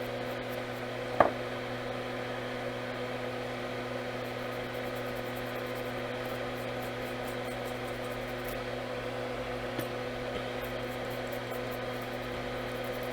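Bench fume extractor fan running with a steady hum. A single sharp click about a second in.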